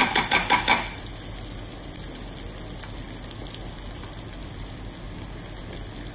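Yellowtail fillets sizzling steadily in hot butter in a steel frying pan, their skin crisping against the pan's edge. In the first second a metal spoon clinks against the pan about five times.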